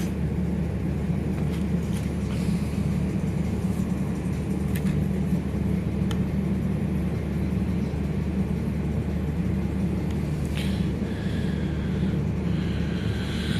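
A steady low mechanical hum runs throughout, with a few light clicks and knocks from parts being handled.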